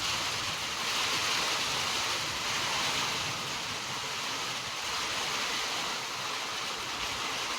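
Steady rain falling, an even hiss with no engine running.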